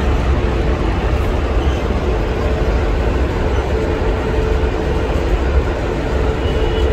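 Long goods train's wagons rolling along the rails: a loud, steady rumble with a faint steady tone held above it.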